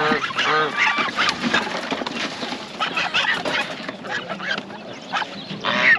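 Caged poultry calling: many short calls overlapping, busiest in the first second and again about three seconds in, with one loud call near the end.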